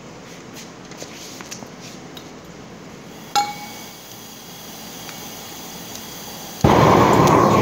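A few small clicks and a sharp metallic clink with a brief ring about three and a half seconds in, then near the end a large handheld gas torch lights all at once and runs with a loud, steady roar.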